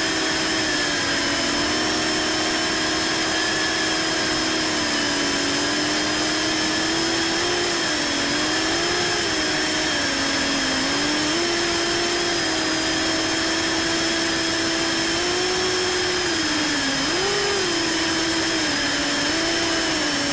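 Brushless motors and propellers of a 6-inch FPV quadcopter (T-Motor Velox 2207 2550KV) buzzing steadily, heard from on board over a steady hiss. The pitch rises and falls several times as the throttle changes.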